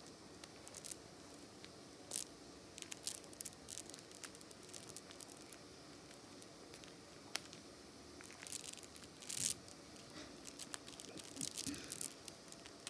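A galah mouthing and tugging at a string of prayer beads: faint, irregular clicks of beads and beak against each other, with soft rustling.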